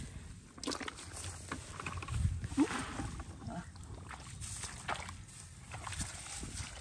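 Irregular splashes and squelching steps in the shallow water and mud of a wet rice paddy, with a brief low vocal sound about two and a half seconds in.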